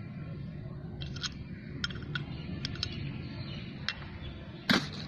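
Parts and packaging handled in a cardboard box: several light clicks and taps, then a louder rustle near the end, over a steady low hum.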